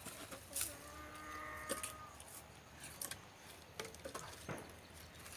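Pieces of firewood knocking and clattering faintly as they are gathered up and carried, a few separate knocks. A faint held tone sounds for about a second, about a second in.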